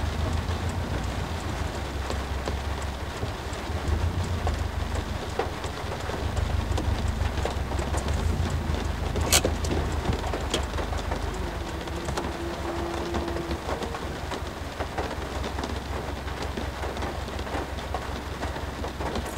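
Heavy rain drumming on the roof of a Subaru Impreza, heard from inside the cabin as a dense steady patter with a low rumble. A few loud sharp clanks stand out, the loudest about nine seconds in: big drops falling onto the roof from overhead power lines.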